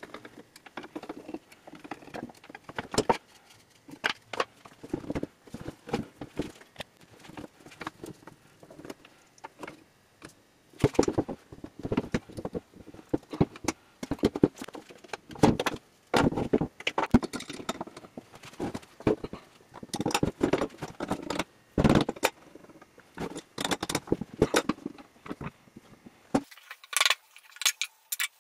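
Irregular clinks, clanks and knocks of metal tools and the cast-iron parts of an antique woodworking vise as it is taken apart by hand on a wooden bench. The knocks grow louder and more frequent in the second half.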